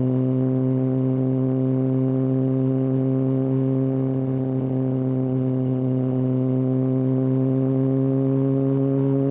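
Kawasaki ZX-6R inline-four with a Hindle exhaust running at steady revs: a constant droning exhaust note whose pitch creeps up slowly near the end.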